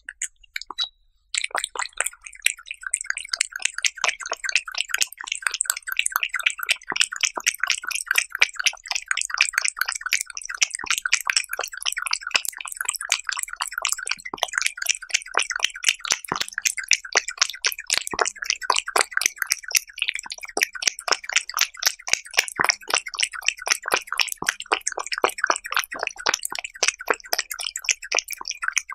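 A cat eating raw beef slices close to the microphone: quick, wet chewing and licking clicks, several a second, starting about a second in and going on steadily.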